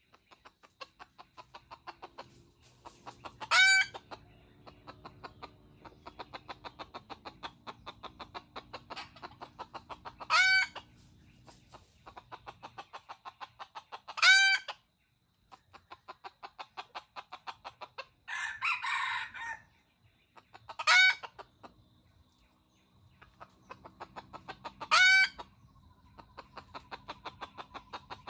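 Red junglefowl crowing five times, each crow short and a few seconds apart, over a rapid steady clucking. A harsher, noisier call comes about two-thirds of the way through.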